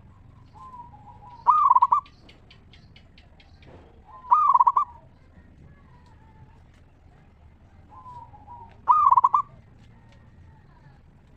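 Zebra dove (perkutut) cooing: three loud, rapidly trilled coo phrases a few seconds apart, each about half a second long, with softer short coos between them.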